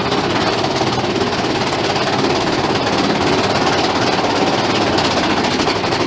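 Big Thunder Mountain Railroad mine-train roller coaster, heard from on board: a loud, steady, rapid rattling clatter as the train runs along its track.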